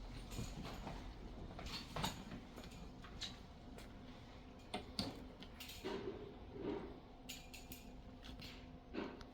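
Scattered light clicks, taps and clatter, with a few brief pitched squeaks a little after the middle.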